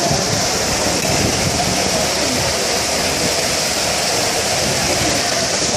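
Steady, loud rush of flash-flood water pouring down a street, mixed with heavy rain.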